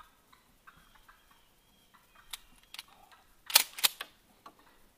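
A shot taken at a turkey: one sharp crack about three and a half seconds in, followed a moment later by a second, fainter crack, with a few small clicks before it.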